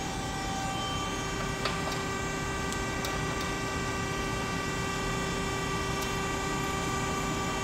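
Hydraulic power unit of an Ermaksan CNC hydraulic shear running with a steady hum, with one light click a little under two seconds in.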